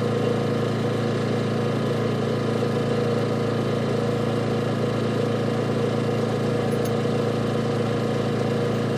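An engine idling at steady speed: a constant low drone with no change in pitch or level.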